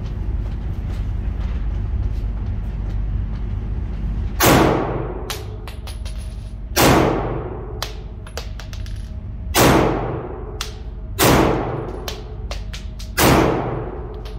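Semi-automatic pistol fired five times in an indoor range booth, the first shot about four and a half seconds in and the rest following every one and a half to three seconds, each shot ringing out off the walls. Fainter sharp clicks sound between the shots over a steady low rumble.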